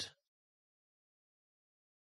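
Near silence, as the last spoken word dies away right at the start.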